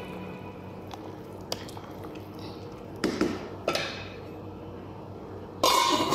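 Lamb stew with tomato, herbs and freshly added hot water simmering in a pan, with soft bubbling and squishing and a few light knocks. A louder clatter of cookware comes near the end.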